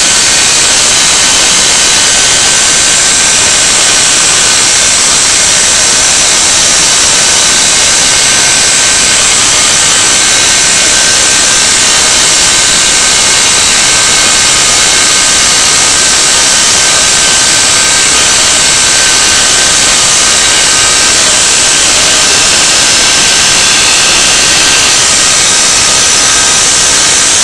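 DIY CNC machine milling a pocket into a wooden board: the spindle and end mill cutting, over the steady rush of a dust-extraction vacuum nozzle at the cut. A loud, continuous hiss with a few faint steady high tones in it.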